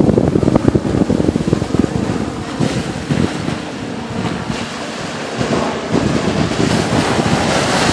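Wind buffeting the microphone over small waves washing onto a sandy shore.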